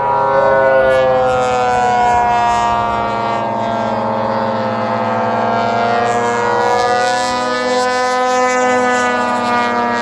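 Engines of several giant-scale radio-control airplanes droning overhead. Their overlapping pitches shift and bend as the planes fly.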